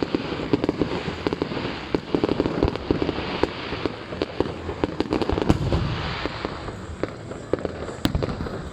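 Fireworks display: a dense, rapid crackle of popping cracks that thins out after about six seconds, with one sharper bang near the end.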